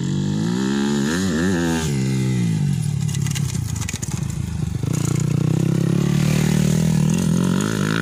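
Motocross dirt bike engine revving hard as the bike rides past. Its pitch rises and falls with the throttle about a second in, drops briefly as it passes close about halfway, then holds a steady high rev.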